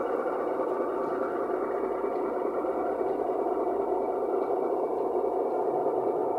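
O gauge model train running on garden railway track, a steady mechanical hum with no distinct clicks.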